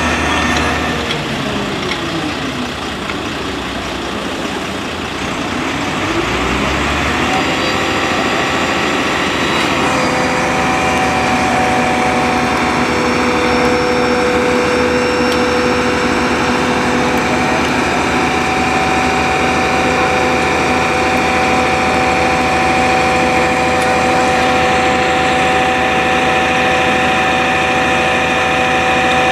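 Fire truck diesel engine running at raised revs, with a steady high whine over it; a few seconds in the revs sink and then climb again before holding steady.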